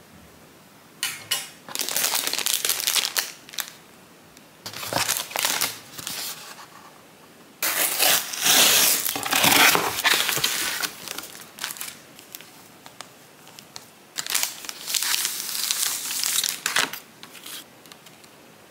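A cardboard box being unpacked, its flaps and the plastic wrapping inside rustling and crinkling in four bursts, the longest and loudest in the middle.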